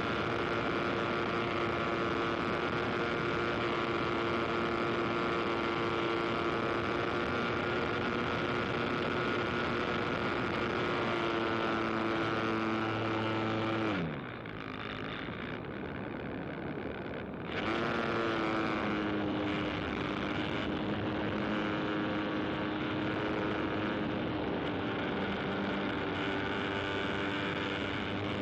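Small high-revving engine running at a steady pitch. About halfway through it is throttled back sharply, then picks up again a few seconds later and settles slightly lower.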